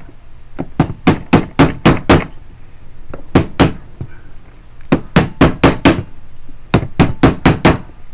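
A small hammer tapping sharply on a metal lock-cylinder cap, about eighteen blows in four quick bursts, seating the cap back onto the trunk lock cylinder.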